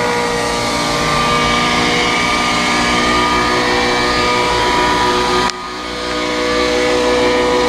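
An engine running steadily at high revs; about five and a half seconds in it suddenly drops off, as if the throttle is closed, then climbs back up over about a second.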